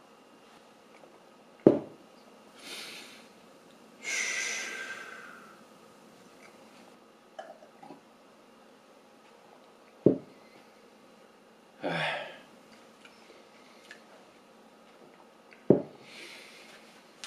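A tall glass of smoothie set down on a cloth-covered table with a dull knock three times: about two seconds in, about ten seconds in, and near the end. Between sips there are breaths and exhales from the drinker.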